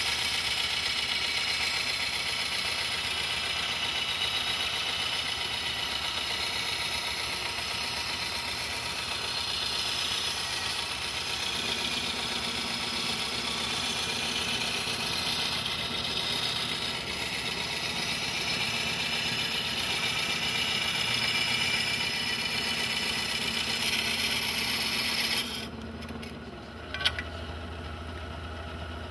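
Diamond Laser 3000XL glass bandsaw's diamond blade grinding through stained glass: a steady grinding hiss. About 25 seconds in the grinding stops, leaving the saw's motor hum, and a single click follows soon after.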